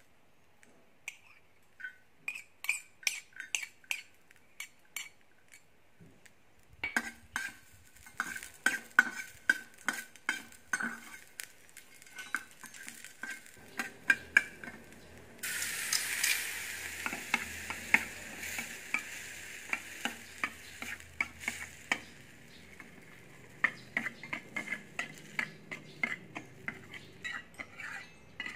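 A small metal utensil clicks and scrapes in a miniature stainless-steel frying pan as chopped garlic and red chili are stirred. About halfway through, a dark sauce goes into the hot pan with a sudden sizzle that slowly fades while the clicking stirring goes on.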